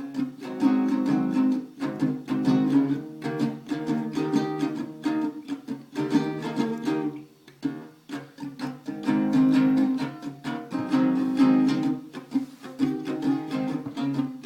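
Acoustic guitar strummed in a rhythmic run of chords, an instrumental passage of a blues song with no singing.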